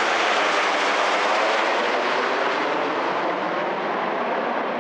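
Jet noise from a formation of nine BAE Hawk T1 jets passing overhead: a steady even rush that slowly fades and dulls as they fly away.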